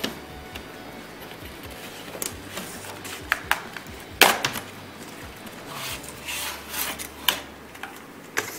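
A keyboard's retail packaging being opened and handled: rubbing and scraping with scattered sharp clicks and taps, the loudest about four seconds in, and a longer rub between six and seven seconds.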